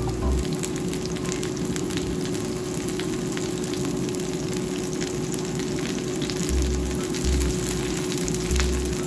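Sweet-corn fritters frying in hot oil in a pan, sizzling steadily with many small crackles and pops.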